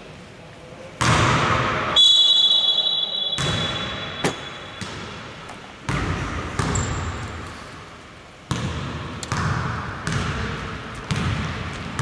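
A basketball bouncing on a hardwood court, about ten irregular dribbles roughly a second apart, each echoing in a large, empty hall. A steady high tone sounds for about three seconds, starting a couple of seconds in.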